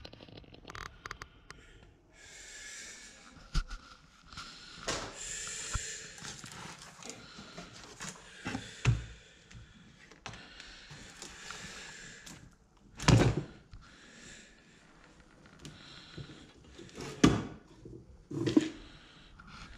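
Cardboard boxes and paper card tags being handled and rummaged through: rustling paper and cardboard, then three knocks near the end as a box is moved on the bench.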